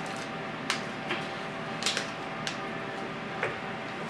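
A few light clicks and taps of kitchen utensils and spice containers being handled, spaced irregularly, over a steady faint room hum.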